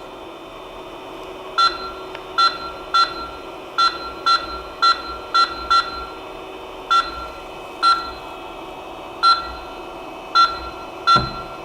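Creality CP-01 3D printer/laser engraver control panel beeping at each button press as the laser head is jogged into position: about fourteen short, high beeps at irregular intervals over a steady hum.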